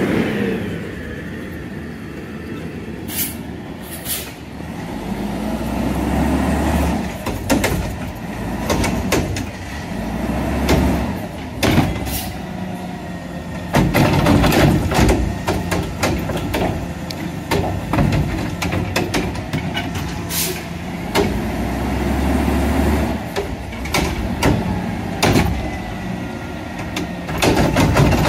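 Mack LR garbage truck's diesel engine revving up and down in repeated surges to drive the hydraulics, as the Curotto Can's arm lifts green-waste carts, tips them into the can and sets them back down. Sharp bangs and clatter come from the plastic carts and the lift mechanism.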